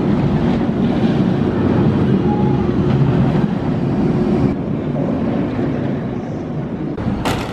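B&M sit-down looping coaster train running on its steel track: a steady low rumble with a rushing, wind-like sound. The sound changes abruptly about four and a half seconds in, and a short sharp click comes near the end.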